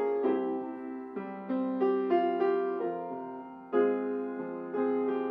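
Background piano music: chords and single melody notes struck one after another and left to ring out.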